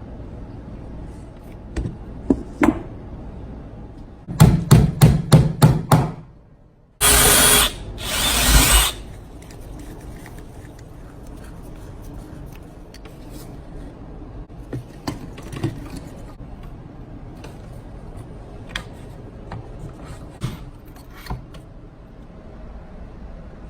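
Workshop tool sounds: a quick run of about seven sharp knocks, then a power tool runs in two short bursts, the second rising in speed, followed by scattered light clicks and handling noises.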